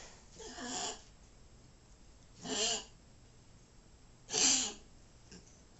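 An old dog coughing wheezily three times, short harsh coughs about two seconds apart: the cough of congestive heart failure.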